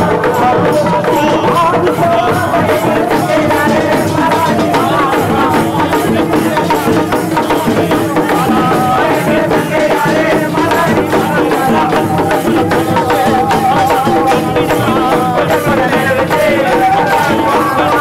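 Music with a continuous wavering melody and hand-held brass ring rattles shaken in a steady rhythm, with crowd voices.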